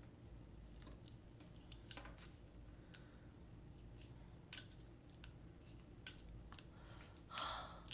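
Faint, scattered small clicks and taps of a utensil being handled at a cake, with a short hiss about seven seconds in.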